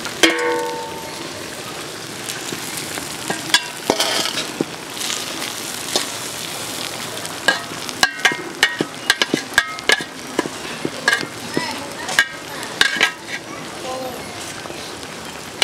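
Biryani rice and chicken sizzling in an aluminium pot as a metal serving spoon stirs and scrapes through the rice, with many sharp clinks of spoon on pot. A ringing metal clang right at the start.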